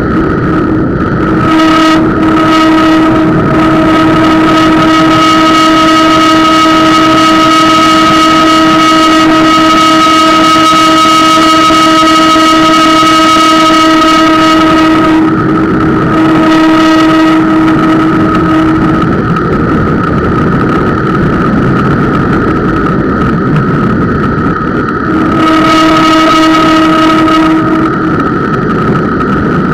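Bicycle disc brake squealing under light braking: a steady pitched squeal with overtones from about two seconds in until about nineteen seconds, then again for a few seconds near the end, over the rushing of semi-metallic brake pads and tyres carried through the camera mount. The squeal comes from a Centerlock-mounted brake rotor, which the rider takes for typical of the Centerlock system.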